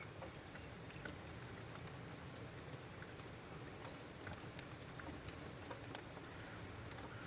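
Heavy rain falling: a steady hiss dotted with many small, scattered drop ticks.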